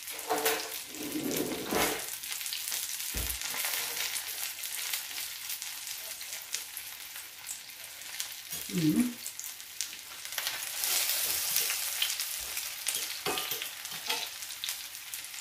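Cabbage cutlets frying in oil in a pan: a steady sizzle with crackles throughout, and a few brief clinks of cutlery.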